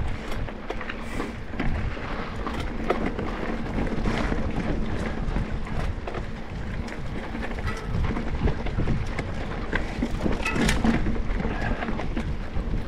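Mountain bike ridden along a dirt trail: wind rumbling on the microphone, with a steady run of clicks and knocks from the tyres and the rattling bike.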